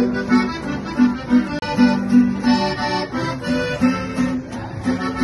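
Lively accordion music with a plucked guitar accompaniment, played in short, rhythmic repeated notes, in a Latin American traditional style.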